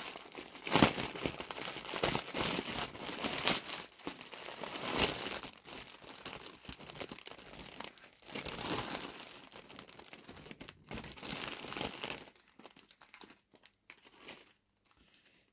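Plastic packaging of a diamond painting kit crinkling and rustling as it is handled, in uneven bursts that die down about twelve seconds in.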